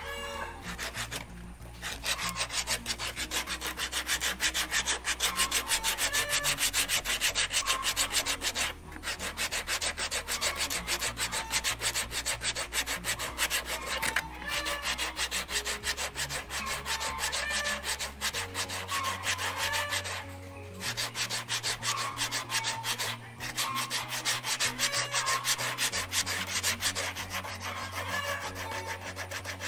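Coarse emery paper scratching in quick back-and-forth hand strokes over a white needlefish-lure blank, shaping it. A dense, continuous rasp with a few short pauses.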